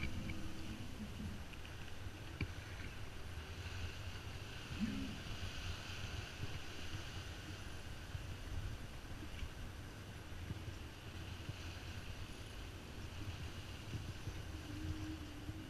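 Steady rush and splash of water along a sailboat's hull as it heels and drives through choppy water under sail, with wind on the microphone.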